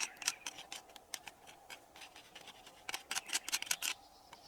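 An irregular run of short, sharp clicks and scratches, with a quick cluster of them about three seconds in.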